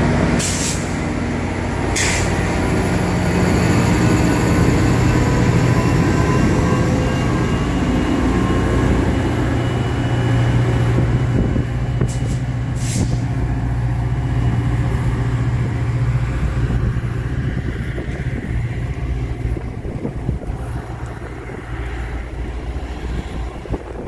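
Caltrain diesel-hauled bilevel passenger train pulling out and moving away, with a steady low engine drone and the rumble of the cars on the rails, fading near the end. Short sharp sounds come twice near the start and once more about twelve seconds in.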